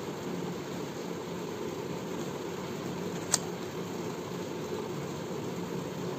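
Steady low mechanical hum and hiss of background room noise, with a single sharp click about three seconds in as the cardboard hang tag is handled.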